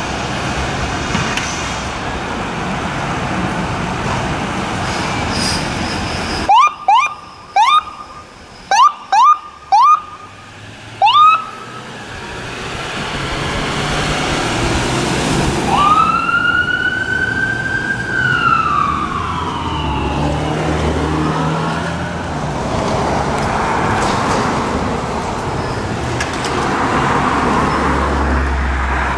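Ambulance pulling away on an emergency response. Its siren gives six short rising whoops, then one wail that rises and slowly falls, over the steady noise of the vehicle's engine and the road.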